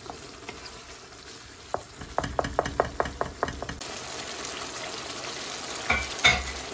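Chicken pieces in tomato-onion masala sizzling in a karahi while they are stirred. A quick run of about seven taps of the stirring utensil against the pan comes a couple of seconds in, and two louder knocks come near the end.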